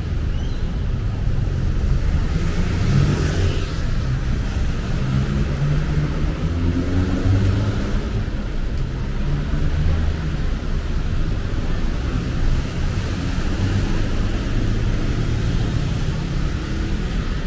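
Steady low rumble of road traffic, with vehicle engines running and passing.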